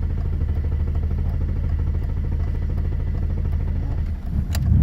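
Starter cranking the BMW M30 straight-six in a long, steadily pulsing churn on a hard-starting engine; near the end there is a click and the engine catches and picks up speed.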